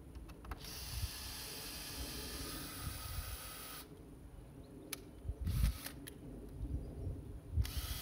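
Cordless drill motor whining as it bores into a wooden slat: one run of about three seconds, then two short bursts.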